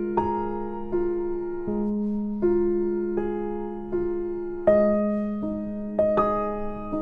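Background piano music: a slow, gentle melody of single struck notes that fade, over a steady low note.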